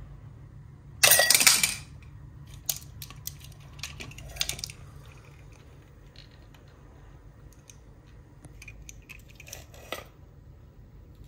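A plastic toy army missile-launcher truck being picked up and handled: a loud plastic rattle about a second in, then scattered clicks and knocks, over a steady low hum.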